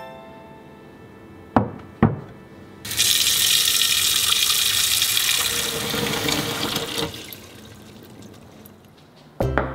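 Tap water pouring into a wooden sushi rice tub in a stainless steel sink, a steady rushing that starts about three seconds in and stops about four seconds later, the tub filling. Two sharp knocks come just before the water starts.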